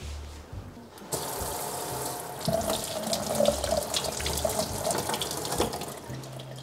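Kitchen tap running over hands rinsing a peeled potato in a stainless steel sink, splashing unevenly as the potato is turned in the stream. The tap comes on suddenly about a second in, and the rush eases near the end.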